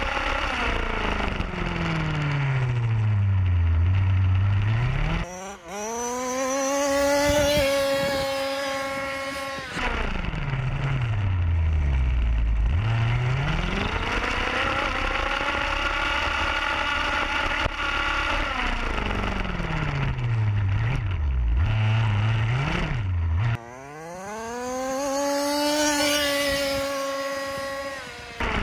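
Zenoah G32 32cc two-stroke engine of an HPI Baja RC car with a resonance pipe, run hard: twice the level dips suddenly and the engine revs up to a high, held full-throttle pitch, and between these runs its pitch swoops down and back up.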